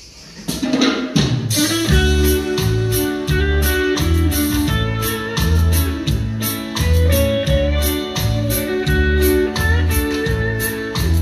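Instrumental intro of a pop song: guitar over bass and a steady drum beat of about two hits a second, building up over the first two seconds.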